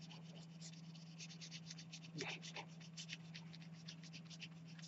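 Dark green oil pastel stick scratching across paper in quick short strokes, several a second, as it colours in a shape; faint.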